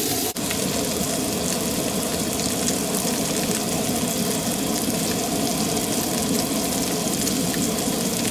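Asparagus and salmon patties sizzling steadily in a hot cast-iron skillet, with added water and butter boiling off as steam. A short click and momentary dropout come just after the start.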